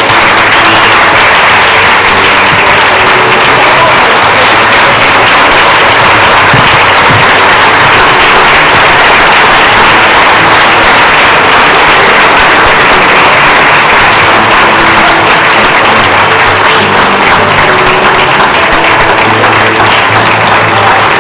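A large crowd applauding steadily in a standing ovation, with music playing underneath.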